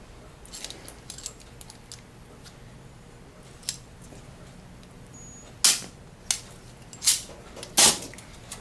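Bone plate cutter shearing a cuttable surgical bone plate: a few light clicks, then about four loud, sharp metallic snaps in the second half.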